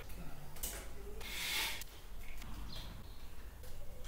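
Rustling, scraping and small clicks of electrical cable and plastic conduit being handled and fitted at a ceiling junction, with a longer rustle about a second in, over a low steady hum.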